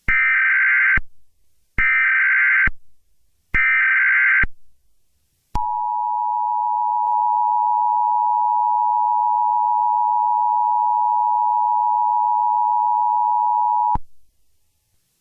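Emergency Alert System tones: three short bursts of SAME header data tones, then the two-tone attention signal held for about eight seconds before cutting off. This is the start of an emergency alert broadcast, here an updated shelter-in-place warning.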